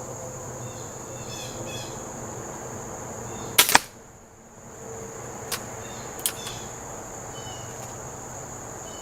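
Benjamin Trail NP nitro-piston air pistol, fitted with a moderator, firing one pellet about three and a half seconds in: two sharp cracks a split second apart. Two fainter clicks follow, and crickets chirp steadily throughout.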